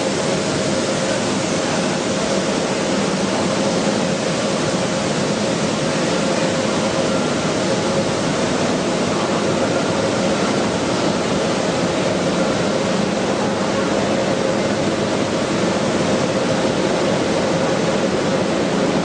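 Wheat flour mill machinery running: a loud, even rushing din with a steady hum through it.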